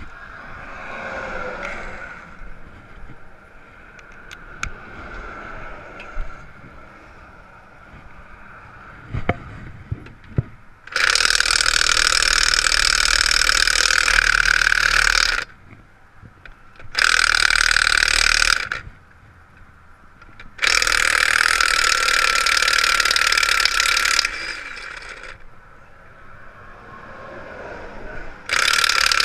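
Impact wrench hammering on rusted lug nuts in four loud bursts of two to four seconds each; the rust keeps the nuts from coming off. A few sharp clicks come before the first burst.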